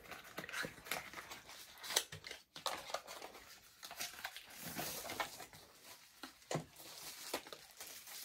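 Packaging being opened by hand: a cardboard box and plastic wrapping rustling and crinkling, with scattered taps and clicks and a longer stretch of crinkling about halfway through.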